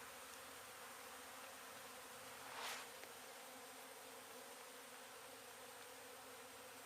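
Faint, steady buzzing of a honey bee colony opened up during a hive removal. One brief scuff about two and a half seconds in.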